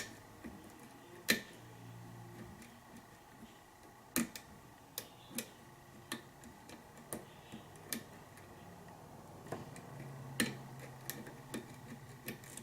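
Lock pick working the pins of a pin-tumbler lock during single-pin picking: light metallic clicks and ticks at irregular intervals, a few louder than the rest.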